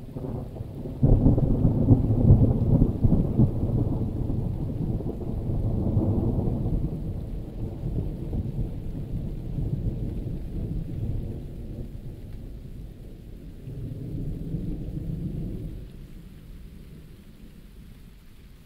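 Thunder rumbling in heavy rain: a deep roll breaks in suddenly about a second in and is loudest over the next two seconds, swells again around six seconds and once more later on, then dies away, with steady rain hissing underneath.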